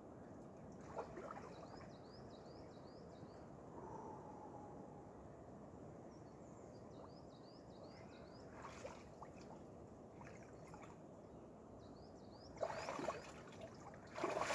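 Lake water sloshing at the shallows as a swimmer wades out, with louder splashes from his legs in the water near the end. A small bird sings a quick run of high chirps three times in the background.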